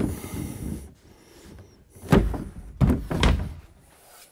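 Pre-hung interior door in its wooden jamb being fitted into a framed rough opening: a scraping rub against the studs at first, then three heavy knocks as the frame is pushed into the opening.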